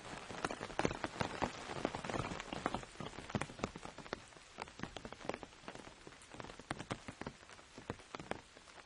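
Rain falling on an umbrella: a patter of many separate drops hitting the canopy, dense at first and thinning to sparser, more distinct drops after about four seconds.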